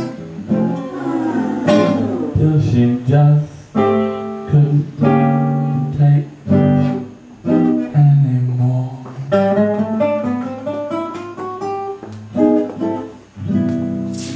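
Acoustic guitar accompaniment with a wordless vocal melody line over it, the notes held and sliding rather than sung as words.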